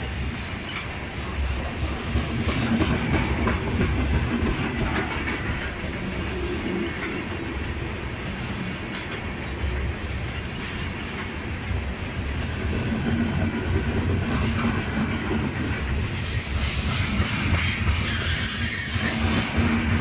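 Freight train of railway tank cars rolling past close by. The wheels rumble steadily on the rails and clack over the rail joints.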